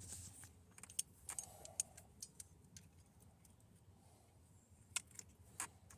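Scattered light metallic clicks and taps of a socket and small hand tools being handled and fitted together, over a faint room hum.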